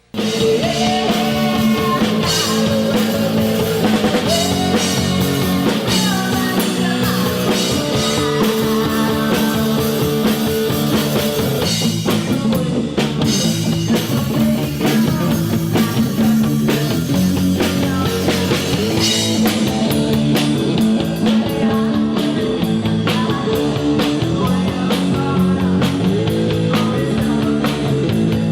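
Rock music from a band with drum kit, electric guitar and bass guitar, cutting in suddenly at full level.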